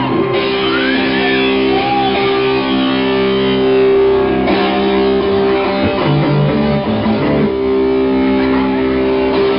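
Amplified electric guitar playing long, ringing chords; the harmony shifts in the middle and comes back near the end.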